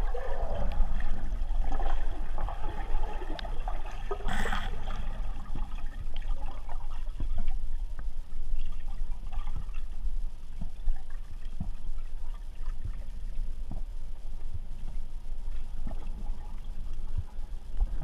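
Underwater water noise picked up by a submerged camera: a steady low rumble with scattered small clicks and water sounds, and a short louder rush of noise about four and a half seconds in.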